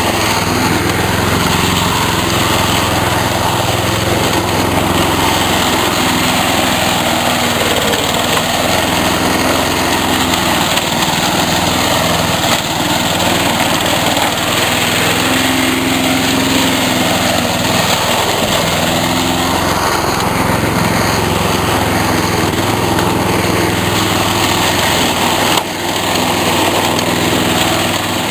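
Two-stroke chainsaw running steadily under load while cutting tree stumps, its engine note wavering a little as it bites.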